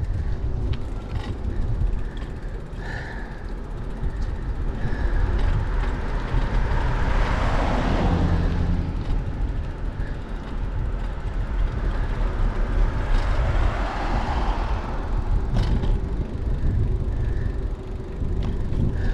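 Wind rushing over a bicycle-mounted GoPro microphone, with a heavy low rumble from the ride. The sound swells louder about seven to nine seconds in and again around fourteen seconds.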